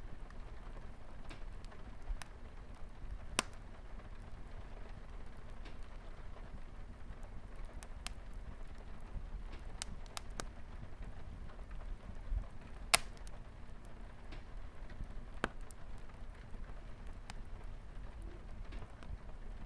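Wood fire crackling, with sharp pops at irregular intervals, the loudest about two-thirds of the way through, over a steady hiss of light rain on a window.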